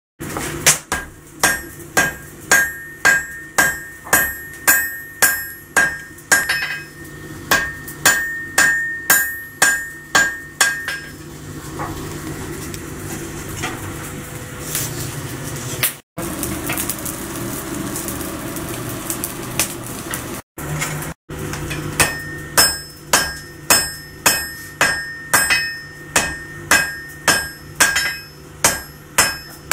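Hand hammer striking hot steel on an anvil during forge welding, about two blows a second, each with a short metallic ring. The hammering stops for about ten seconds in the middle, leaving a steady rushing and low hum, then starts again at the same pace.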